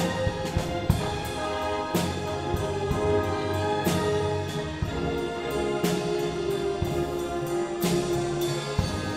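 A live symphony orchestra with strings, brass and piano plays long held chords, with a louder stroke about once a second.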